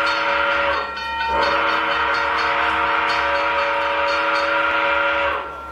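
Train horn blowing a chord of several steady tones: it breaks off briefly about a second in, then sounds one long blast of about four seconds that stops just before the end, leaving a fading echo.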